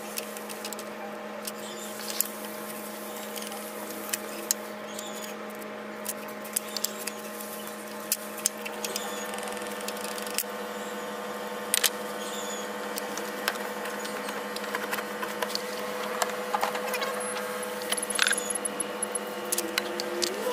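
Scattered clicks and light metallic taps of hand tools working on a Detroit DD15 diesel's rocker arms and adjusting screws during a valve lash adjustment, coming more often near the end, over a steady hum. Small high squeaks come and go.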